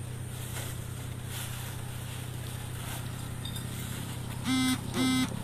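Vehicle horn sounded twice in quick succession near the end, two short flat-pitched toots, over a steady low engine hum.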